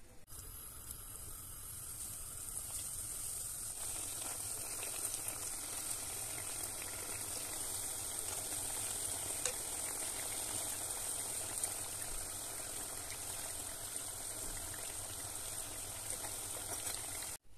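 Hot frying oil sizzling steadily as triangles of pişi dough deep-fry in a pan, with a few light clicks. The sizzling cuts off suddenly near the end.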